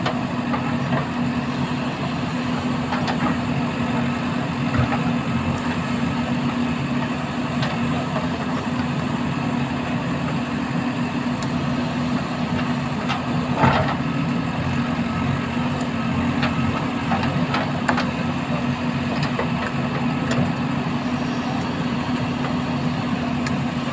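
JCB 3DX Super backhoe loader's diesel engine running steadily as the backhoe arm digs, with a few knocks from the bucket and arm.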